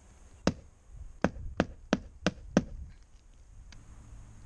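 Six sharp knocks: one about half a second in, then five more in quick succession, about three a second.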